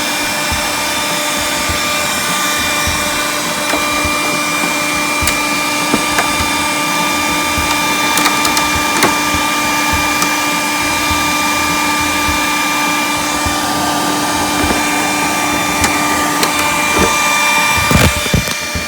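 Hand-held hair dryer running steadily with a whine, blowing heat onto old glue to loosen a glued-on cover piece, with a few light clicks over it. It switches off right at the end.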